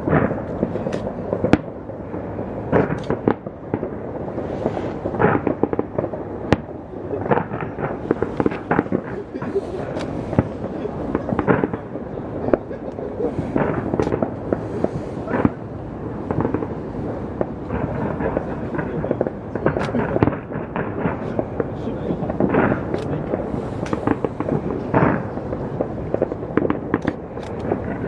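New Year's aerial fireworks display: a rapid, unbroken series of bangs and crackling bursts, several a second, over a constant rumble.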